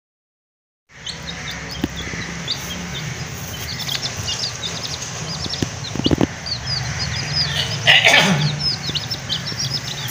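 A group of domestic chicks peeping, many short high chirps that each fall in pitch, starting about a second in. A sharp knock comes about six seconds in and a louder handling noise around eight seconds.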